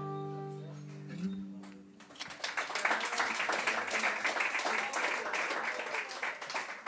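The final held note of soprano saxophone and classical guitar fades out over about a second, then audience applause starts about two seconds in and continues.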